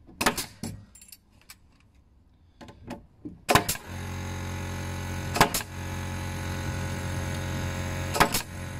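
Bostitch pneumatic joist-hanger nailer firing nails through a steel joist hanger into a timber joist: several sharp shots, a quick cluster about a second in, then one every two to three seconds. A steady mechanical drone with a low hum comes in after about three and a half seconds and cuts off suddenly near the end.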